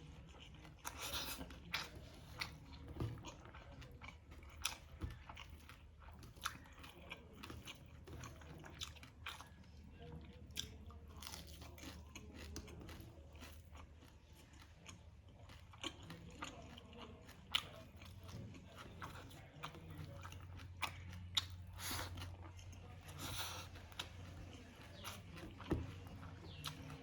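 Close-miked eating: wet chewing with irregular sharp crunches, as of crisp fried whole fish being bitten and chewed. A faint low hum runs underneath.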